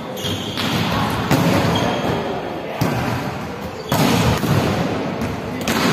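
Volleyballs being struck during play in a large echoing hall: several sharp smacks of hands on the ball, each ringing on in the hall's echo.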